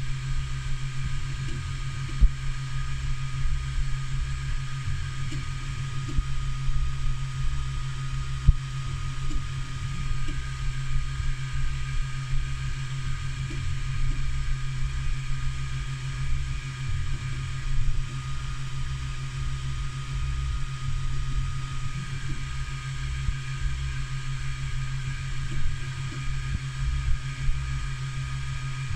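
3D printer running with an E3D Hemera direct-drive extruder, a steady motor and fan hum broken by occasional sharp clicks. These are the weird noises the Hemera makes on retraction, which come along with poor retraction and underextrusion after retraction.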